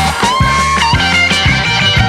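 Background rock music with a gliding lead guitar line over bass and drums.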